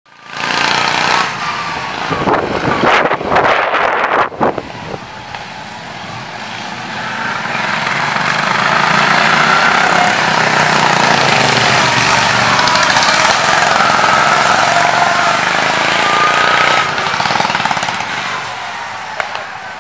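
Racing lawn mowers' engines running hard as a pack goes past, a rapid rattling drone that swells to its loudest through the middle and fades near the end. A few sharp bursts of noise come in the first few seconds.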